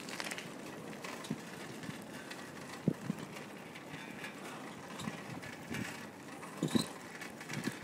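Bicycle rolling over street pavement, picked up by a phone taped to the bike: a steady rumble of tyres and air with a few rattling knocks, the loudest about three seconds in and again near the end.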